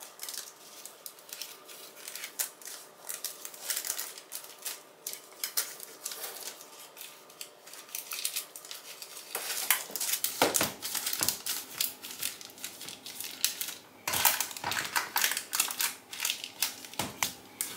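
Hands pressing and pinching puff pastry edges together in a metal baking tray lined with baking paper, sealing the pie: a run of small clicks, paper rustles and light knocks against the tray. The handling noises grow busier and louder past the middle.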